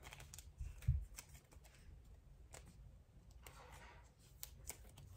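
Trading cards being handled and sorted through, a scatter of soft clicks and rustles, with one dull low thump about a second in.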